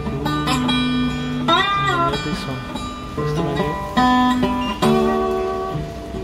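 Background music: a plucked guitar playing a melody, with a sliding pitch bend about a second and a half in.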